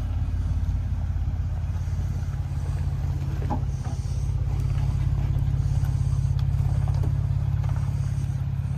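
Off-road truck engine running steadily at low revs, with a few faint clicks and knocks.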